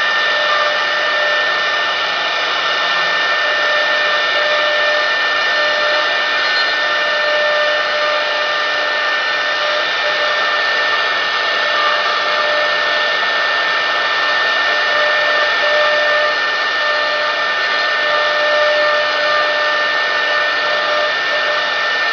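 CNC router spindle running at high speed with a steady high-pitched whine over a rushing hiss, its small bit carving a wooden blank held in the rotary axis.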